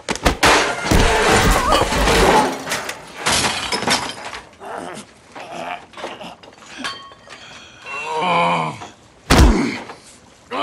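Movie fight sound effects: a dense flurry of heavy blows and crashes with things breaking over the first few seconds, then sparser hits. A pained vocal cry comes about eight seconds in, and a single hard thud about a second later.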